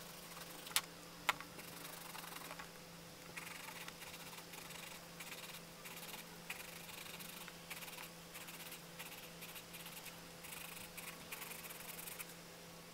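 Coloured pencil rubbing across sketchbook paper in short scratchy strokes that come and go, with two sharp clicks about a second in, over a steady low hum.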